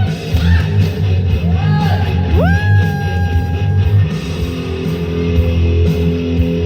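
Rock-style backing music with a heavy, steady bass. About two and a half seconds in, a high note slides up and holds for over a second.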